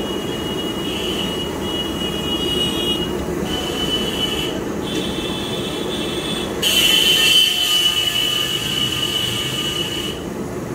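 Gas burner roaring under a kadhai of hot oil while puris deep-fry, the oil sizzling, with a high whistling tone coming and going over it. The sizzle grows louder and hissier about seven seconds in and drops back about three seconds later.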